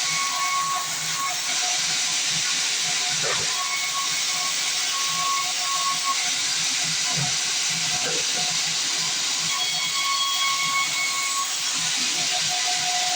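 Band sawmill running with a steady hiss, under faint background music with held notes.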